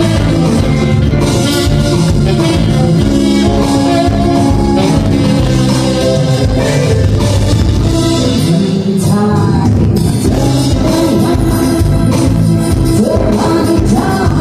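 Live band playing a song with guitar, bass, drum kit and vocals.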